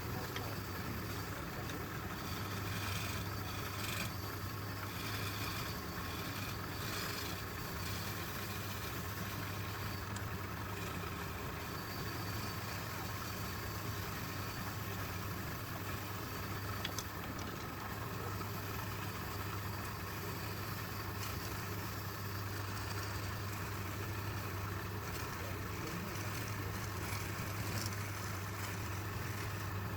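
Wood lathe running steadily, its motor giving a constant low hum.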